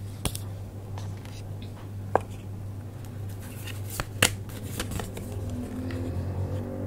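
Tarot cards being handled and laid down by hand: a few sharp card snaps and taps, spaced a second or two apart, over a faint steady low hum.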